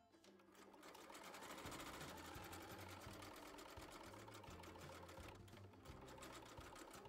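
Electric home sewing machine stitching at speed, a fast even needle rattle as it sews a flexible LEGO-style studded strip onto felt and denim. It picks up about half a second in and eases off near the end.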